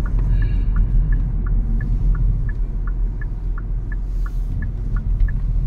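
Steady low road and engine rumble inside a moving car's cabin. Over it, the turn-signal indicator ticks about three times a second, alternating between two slightly different clicks.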